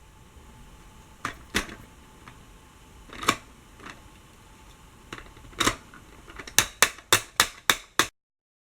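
Sharp taps and knocks of hard plastic toys being banged by a toddler: a few scattered knocks, then a quick run of about six taps near the end that stops abruptly.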